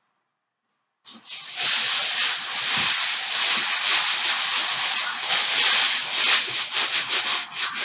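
About a second of dead silence, then loud, close rustling and crackling.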